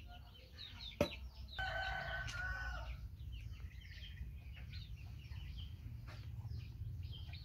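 Chickens clucking, with small birds chirping in the background. There is a longer pitched clucking call from about one and a half to three seconds in, and a single sharp click about a second in.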